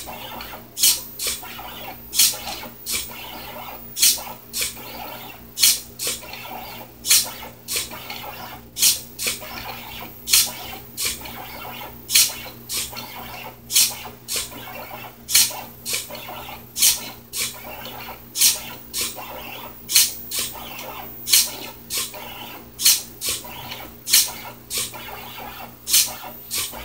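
4xiDraw pen plotter at work: its stepper motors hum steadily while the pen scratches over the paper. Sharp clicks come about one and a half times a second, the SG90 micro servo lifting and dropping the pen between short strokes.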